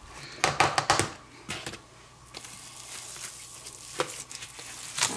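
A metal spoon stirring seasoned flour in a small bowl, clicking and scraping against the bowl in a quick cluster about half a second in, then a couple of single taps later.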